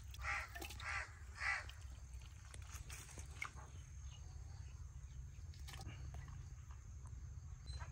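A crow cawing three times in quick succession, about half a second apart, in the first second and a half, over a faint steady low hum.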